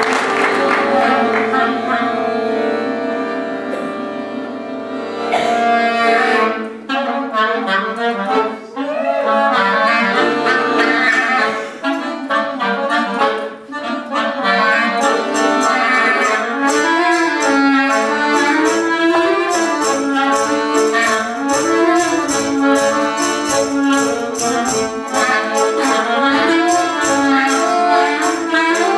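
Clarinet and piano accordion playing a tune together: the accordion opens on held chords, the clarinet's melody comes in after about six seconds, and a steady fast ticking beat joins about halfway.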